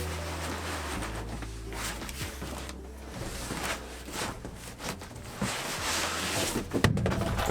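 Plastic water tank being handled and set into place: irregular rustling, scraping and knocking over a low steady hum.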